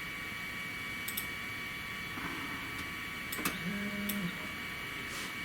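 3018 benchtop CNC router's stepper motors giving a short pitched whine about three and a half seconds in as the machine jogs an axis. A few light clicks come before it, over a steady high electrical tone.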